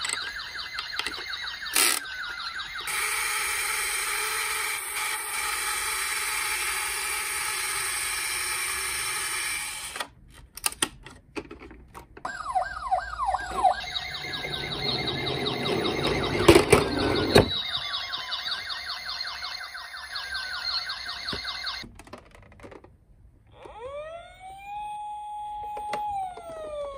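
Toy ambulance and police-car minicar sirens sounding, changing pattern several times: fast repeated falling sweeps, a steady buzzing stretch, and a slow rising-and-falling wail near the end. A loud clatter comes about two-thirds of the way through.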